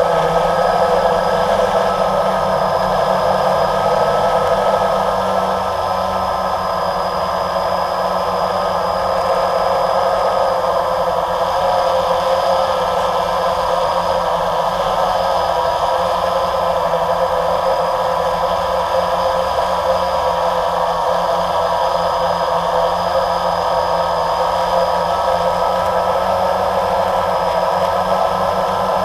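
Multirotor camera drone's electric motors and propellers heard from its own onboard camera, a steady whir of several tones with small wavers in pitch as it hovers and drifts.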